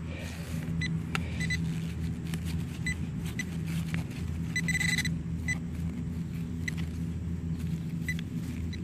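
Hand digger scraping and chopping soil in a dig hole, while metal-detecting gear gives short, high electronic beeps, a dozen or so, one held a little longer about five seconds in. A steady low hum runs underneath.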